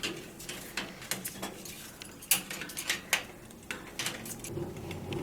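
A parrot's beak chewing and knocking at a wooden-block and leather toy: irregular sharp clicks and taps. A low rumble comes in near the end.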